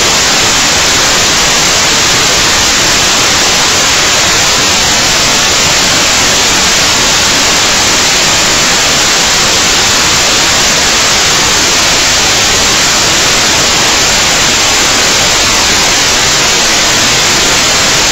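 Loud, steady static hiss with no change, covering any sound of the work on the table.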